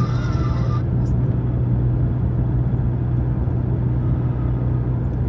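Steady rumble of a moving car heard from inside the cabin: engine and road noise with a strong low hum that stays even throughout.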